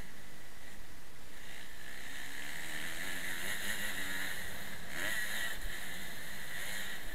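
Motocross bike engine revving as the bike is ridden over a dirt track, heard through a helmet-mounted camera and largely buried under wind rush on the microphone. The engine note climbs in pitch a couple of times, the second time about five seconds in.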